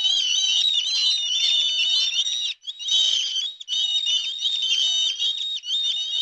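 Many small birds chirping at once in a dense, high-pitched chorus of overlapping calls, briefly dropping out twice.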